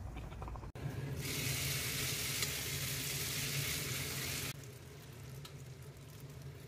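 Bacon sizzling in hot oil in a frying pan, then spaghetti tossed with tongs in the hot fat with a steady, loud sizzle that drops off abruptly about four and a half seconds in. Quieter sizzling follows as pasta cooking water is ladled into the pan.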